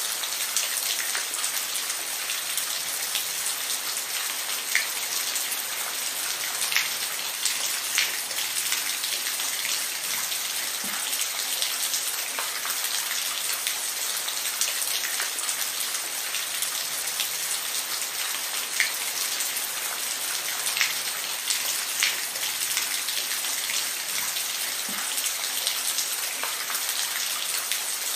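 Steady rainfall pattering on a surface, with individual drops ticking now and then.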